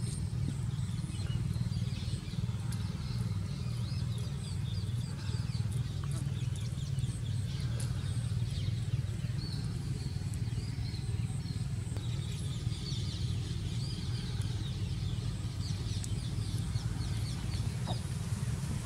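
Birds chirping faintly over a steady low rumble of outdoor background noise.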